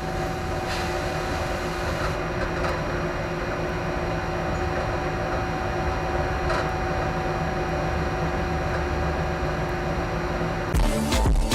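Train running: a steady low rumble with a steady hum through it. About ten seconds in, music starts.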